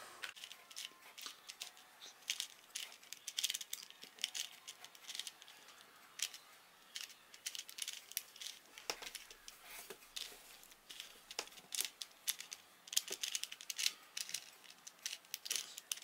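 Plastic 4x4 Rubik's cube being turned by hand: quick, irregular clicks and rattles as its layers snap round, coming in runs with short pauses between them.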